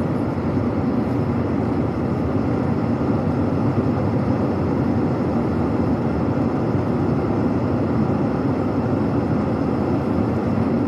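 Diesel engine and cab noise of a heavy truck, heard from inside the cab, running steadily as the truck rolls slowly.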